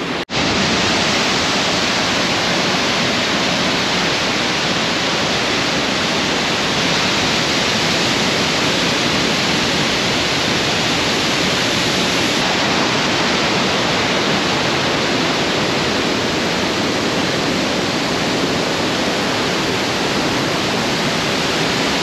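Large waterfall in full flow: a loud, steady rush of falling and churning water, with a slight change in tone about halfway through.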